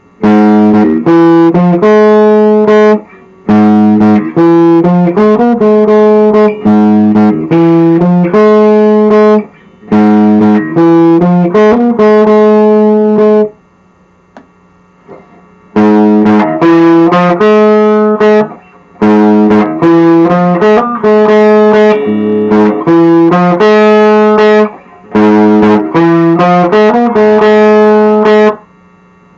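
Upgraded Squier Classic Vibe '60s electric guitar played through an amplifier speaker: chords picked in short rhythmic phrases, with a pause of about two seconds halfway through.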